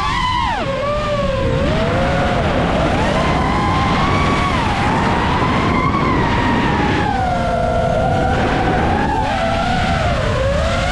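7-inch FPV quadcopter's motors and propellers whining in flight, the pitch sliding up and down constantly as the throttle changes.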